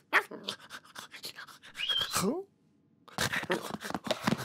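Cartoon sound effects of a cat scrabbling about: rapid scratchy scuffling, a short rising cat-like call about two seconds in, then more quick scraping after a brief pause as the cat grabs its metal food bowl on the floor.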